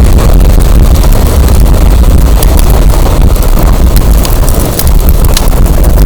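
Strong wind buffeting the microphone with a loud, steady low rumble, over burning firewood crackling with many small sharp pops.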